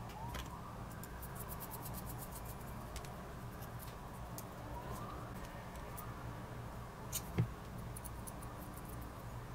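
A small plastic propeller being twisted by hand onto a thin metal shaft: a run of fine light ticks, then one sharper click about seven seconds in, over a steady low hum. A faint tone rises and falls in the background about halfway through.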